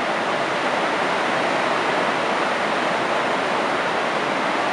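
Steady, loud hiss with no changes, like a constant noise floor on the recording; no speech.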